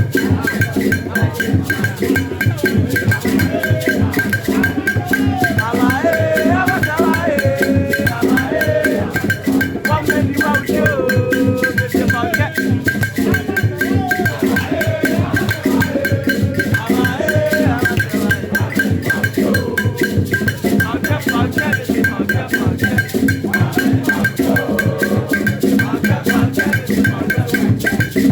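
Recorded music with a fast, even percussion beat of wood-block and shaker-like strokes under a wavering melody line, played loud over a hall's sound system for a sound check, with a steady high tone running underneath.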